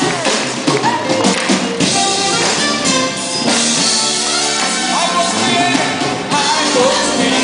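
Full-band worship music with drum kit and singing voices.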